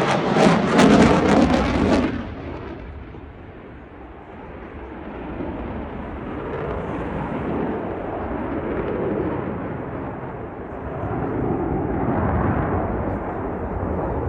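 Eurofighter Typhoon's twin EJ200 afterburning turbofans in a display pass: loud jet noise for about two seconds that drops off suddenly, then a more distant rumble that swells and fades twice.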